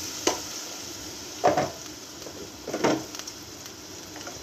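A wooden spatula scraping and knocking against a black wok three times, about a second and a half apart, while chopped green bell peppers sizzle faintly in the oil.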